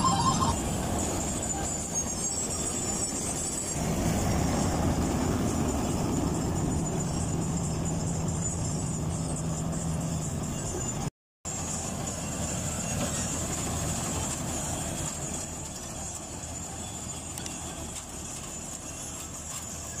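Combine harvester running while it cuts standing rice: a steady engine and machinery drone, with a brief dropout near the middle.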